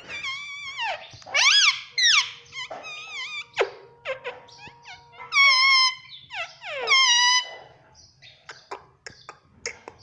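Male Indian ringneck parakeet vocalizing in a string of loud, pitched squawks and whistle-like calls that swoop up and down, about five bursts in the first seven or so seconds. Near the end come only short, soft clicks.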